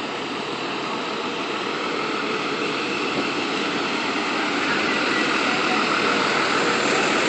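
City bus engine running close by, a steady rumble that grows louder as the bike draws up alongside the bus.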